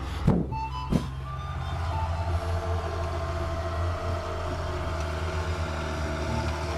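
Snowplow truck's engine running steadily, with a reversing beeper sounding. A couple of sharp knocks come in the first second.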